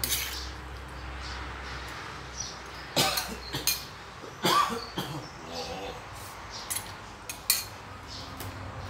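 A man coughing several times, in short harsh bursts, choked by the chili in the paste he is pounding.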